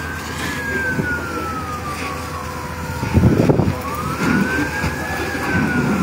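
Fire truck siren wailing in slow rise-and-fall sweeps, about one every five seconds, over a steady low rumble. A brief, louder low rush comes about three seconds in.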